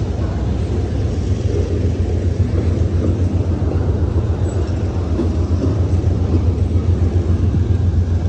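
Double-stack intermodal freight train rolling past, its container-laden well cars making a steady low rumble on the rails.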